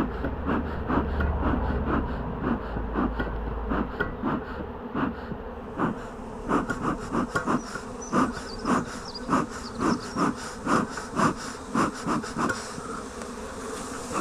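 Honey bee swarm humming steadily at close range, bees running over the comb of a wall cavity. A run of light knocks, about two a second, sounds over the hum, with a low rumble in the first few seconds.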